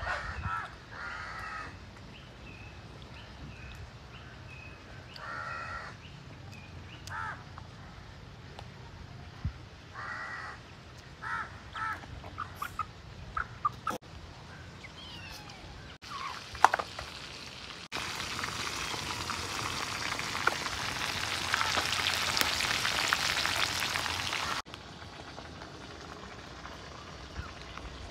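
Short harsh animal calls, crow-like caws, repeated several times over the first dozen seconds. Then a loud steady hiss, the loudest sound here, runs for about six seconds and cuts in and out abruptly.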